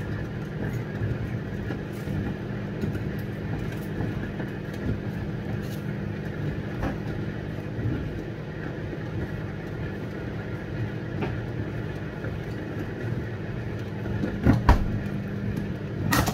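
Steady electrical hum of a running kitchen appliance, with a few sharp knocks and clicks near the end.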